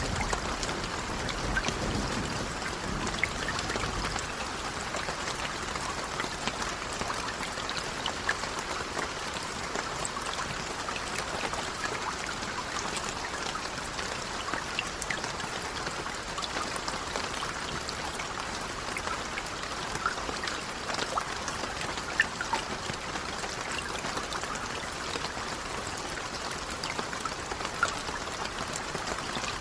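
Steady rain with many small drop ticks. A low thunder rumble dies away in the first few seconds.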